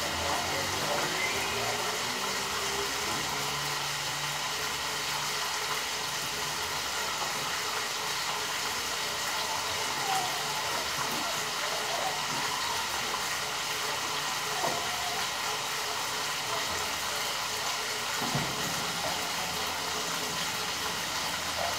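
Pork chops frying in a skillet, a steady sizzling hiss with a few faint ticks.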